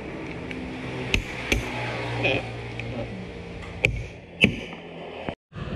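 Background music with held low notes, with a few sharp knocks over it; the sound cuts out briefly near the end.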